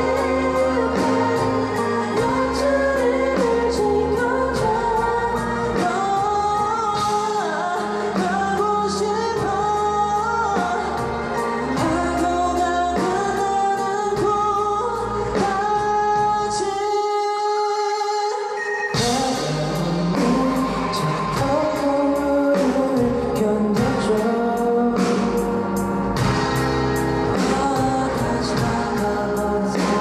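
Pop-rock band song with male lead vocals over drums, electric bass and keyboard. A little past the middle the bass and drums drop away for about two seconds, leaving voice and keys, then the full band comes back in with a cymbal crash.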